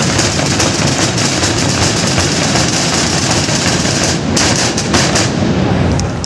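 Massed Holy Week drum corps of bass drums, snare drums and large barrel drums playing a loud, dense, rapid drumming.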